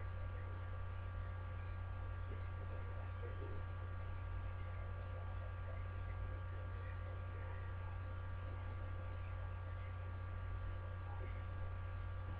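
Steady electrical mains hum, a low constant drone with a few faint steady high tones above it, picked up by the recording's microphone.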